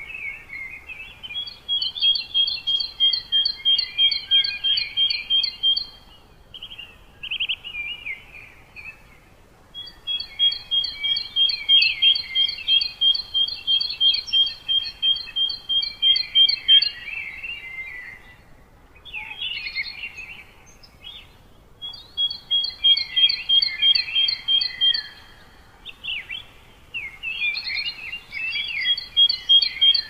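Songbirds singing in the tree canopy. There are long phrases of rapidly repeated high notes, about four a second, mixed with quicker twittering, and several short pauses between phrases.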